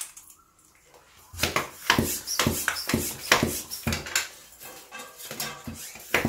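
Hand floor pump being worked, inflating a bicycle inner tube through its valve: a rhythmic series of pump strokes, about two to three a second, starting about a second in.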